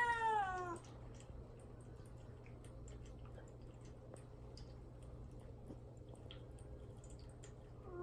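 Kitten meowing from inside a cage. One long meow rises and then falls in pitch right at the start, then only faint ticks are heard, and another meow begins at the very end. It is crying to be let out while kept without food or water before neutering.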